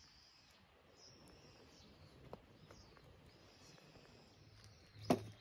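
Faint high bird calls, short curved chirps repeating every second or so, over low background noise. One sharp click stands out about five seconds in.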